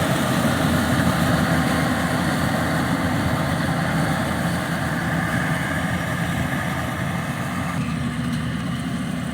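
Engine of a rice harvesting machine running steadily, with a low drone and a mechanical clatter; the higher part of the sound eases off slightly near the end.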